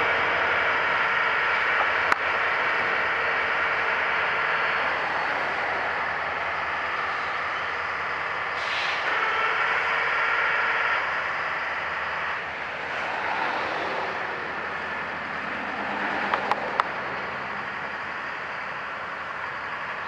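Engines of heavy rail equipment running steadily with a whining note, with a few sharp metallic clicks about two seconds in and again around sixteen to seventeen seconds in.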